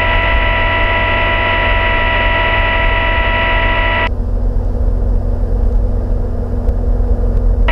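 Cabin drone of a Cirrus single-engine piston airplane's engine and propeller. A steady, high, multi-pitched electronic tone sounds over it and cuts off about four seconds in.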